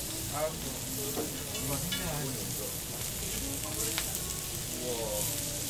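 Lamb sizzling on a jingisukan grill, a steady frying hiss, with one sharp click about four seconds in.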